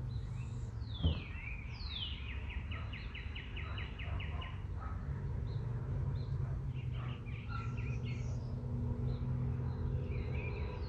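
Wild birds singing: several down-slurred whistles and a fast, even trill of about six notes a second, over a steady low rumble. A single brief knock about a second in.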